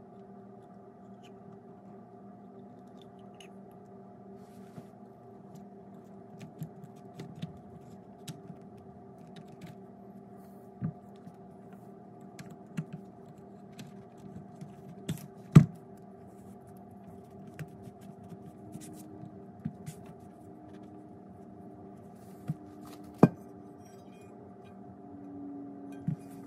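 Steel clutch and brake pedal assembly being handled and fitted onto its pivot shaft and bracket: scattered light clicks, taps and scrapes of metal parts, with two sharper knocks, one about halfway through and one about three-quarters in. A steady low hum runs underneath.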